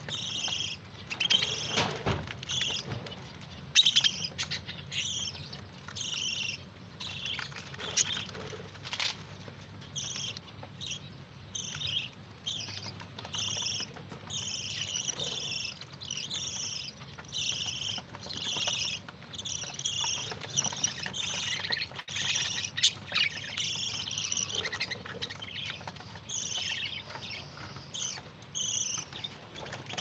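Budgerigars chattering, a steady stream of short, quick chirps several times a second, with a few sharp clicks among them.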